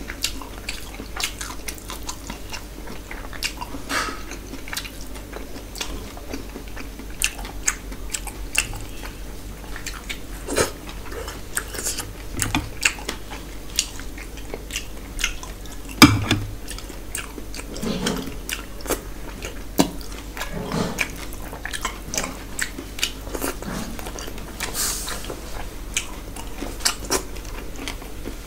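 Close-miked chewing and mouth sounds of a person eating rice and curry with his hand, with frequent sharp clicks; the loudest comes about sixteen seconds in.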